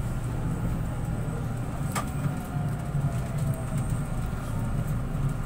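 Inside an LRT Line 2 train slowing into a station: a steady low rumble of the car running on the rails, with a faint whine that falls gently in pitch and a single sharp click about two seconds in.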